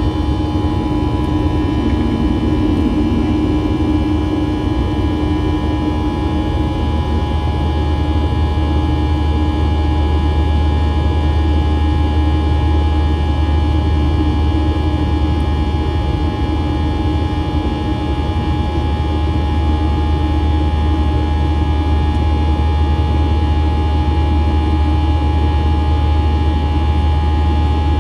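Steady cabin noise of a Boeing 737-700 in flight shortly after takeoff, heard from a window seat over the wing: its CFM56-7B turbofan engines running with a deep drone, a rushing hiss and several steady whining tones.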